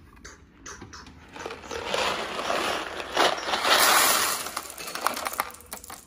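Dry elbow macaroni poured from a cardboard box into a plastic-lined trash bin: a dense rattling rush that swells to its loudest in the middle and then tails off. A few light knocks come first as a cabinet drawer is pulled open.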